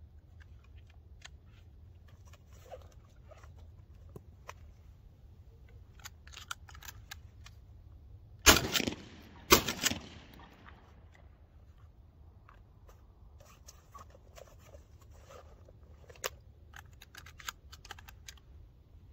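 Two shotgun shots about a second apart, each ringing out briefly after the blast, with scattered faint clicks before and after.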